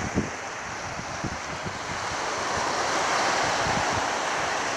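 Sea waves washing up a sandy beach, swelling to a louder wash about halfway through. Wind buffets the microphone in short low rumbles, the strongest just after the start.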